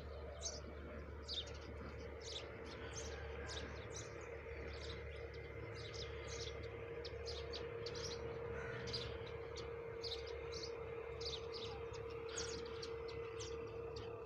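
Small birds chirping: many short, high, quick calls, several a second, over a steady low hum.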